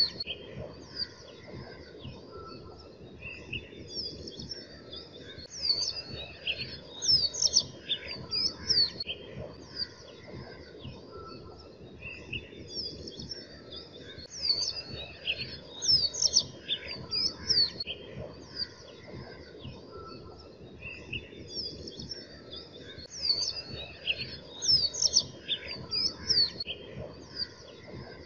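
Birds chirping: clusters of quick, high, sharp chirps every few seconds over a steady low background noise.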